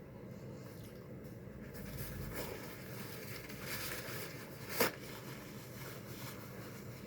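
Eating noises: chewing and handling of food over a steady low hum, with one sharp click or crunch almost five seconds in.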